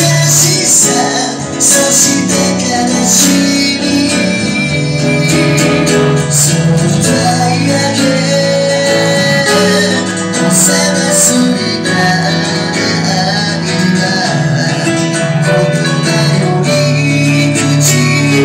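Live acoustic band music: a vocalist singing into a microphone, accompanied by a strummed acoustic guitar and an electric keyboard, playing steadily without a break.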